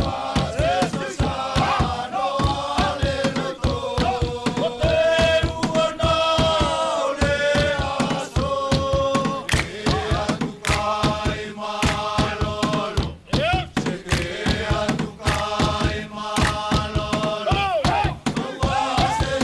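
Futunan group chant: many voices singing together in long held lines, over fast, steady percussion beats that accompany a dance.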